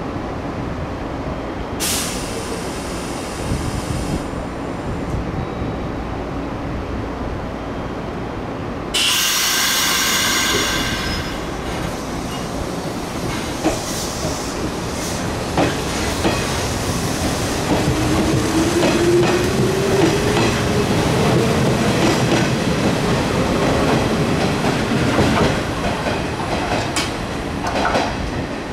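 A Nishitetsu 5000-series resistance-controlled electric train, with two bursts of air hiss, the second and louder one about a third of the way in. After that the train accelerates: its motor tone rises halfway through and then holds, and the wheels click over rail joints.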